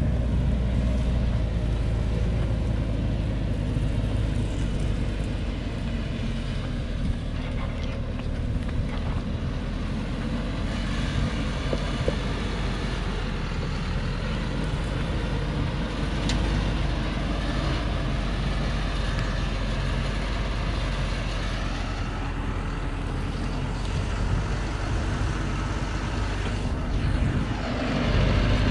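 Truck engine running steadily at low speed, heavily loaded with acacia logs, as it creeps down a steep dirt track: a continuous low rumble with a few faint knocks.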